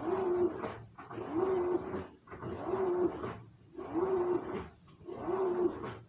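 Top-loading washing machine agitating a tub of soapy water: churning water with a short low motor tone on each stroke, repeating about every 1.3 seconds.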